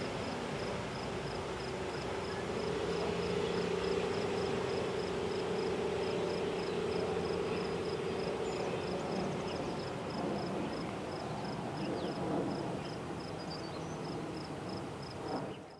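Loram rail grinder train's diesel engines running as it moves away along the track, a steady drone with a hum that comes in about two seconds in and fades out near ten seconds. A faint high ticking repeats about four times a second.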